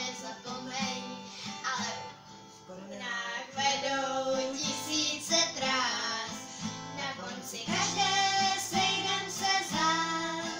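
A young girl singing a song, accompanied by a strummed acoustic guitar, with a brief pause in the singing about three seconds in.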